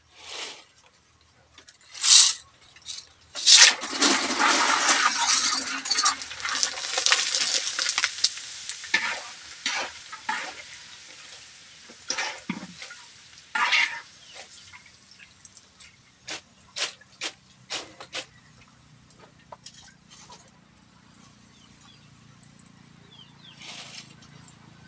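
Macaroni chicharon pieces frying in hot oil in a wok, with a loud sizzle for several seconds as they go in. This is followed by scattered clicks of a spatula against the wok as the pieces are stirred and lifted out.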